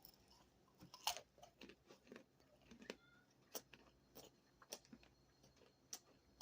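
Faint, irregular clicks and crunches, one or two a second, the loudest about a second in.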